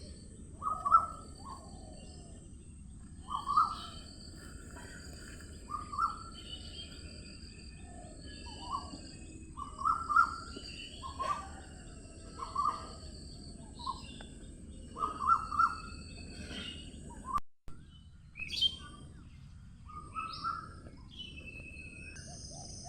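Several wild birds singing and calling over a steady low outdoor background. One bird repeats a short call every second or two, and others add higher chirps. The sound cuts out for a split second about three-quarters of the way through.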